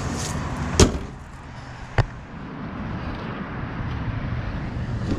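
Two sharp slams of a car's panels closing, such as the hood or a door, about a second apart, the first the louder.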